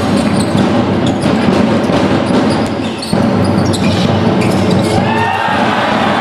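A basketball bouncing on a gym floor during play, over a steady din in the hall. A few high squeaks that slide in pitch come near the end.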